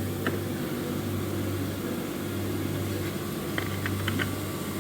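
Steady low mechanical hum. There is a light click about a quarter second in and a quick run of clicks near the end.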